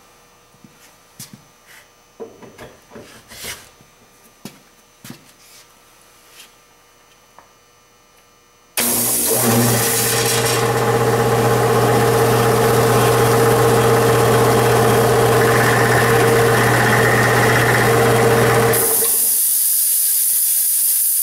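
Single-phase electric air compressor motor and pump starting abruptly about nine seconds in, after a few faint clicks of handling, then running up to speed with a steady hum for about ten seconds. It starts only because the start capacitor is switched in by hand, the sign that the motor's inertia (centrifugal start) switch has failed. The motor then stops, leaving a steady hiss of air.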